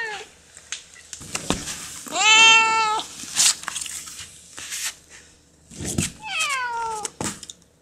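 Domestic cat yowling: one long, steady yowl about two seconds in and a second cry falling in pitch near the end, with a few short hissing sounds between them.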